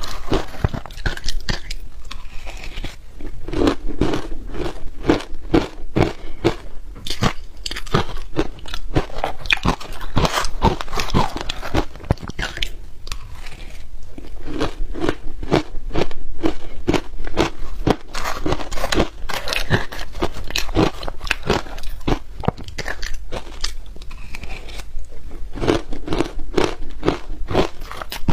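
Shaved ice coated in matcha milk powder being bitten and chewed close up, a dense, continuous run of crisp crunches.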